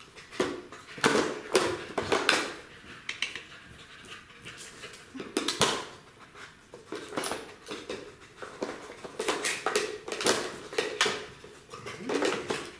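A German Shepherd puppy working a dog puzzle toy, its blocks knocking and clattering again and again as he noses and paws at them, with the puppy's own sounds between the knocks.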